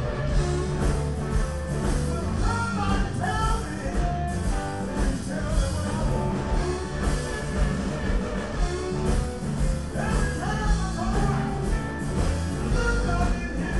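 Live blues band playing amplified: electric guitar over a steady bass line, with lead notes bending in pitch twice.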